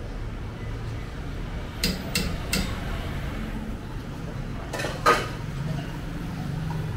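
Metal ladle clinking against a stainless steel stockpot as noodle-soup broth is ladled out: three quick knocks about two seconds in, then a louder single clank about five seconds in, over a steady low background hum.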